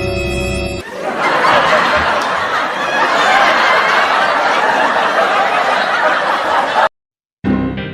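Many people laughing together, like a laugh track, for about six seconds, cutting off abruptly near the end.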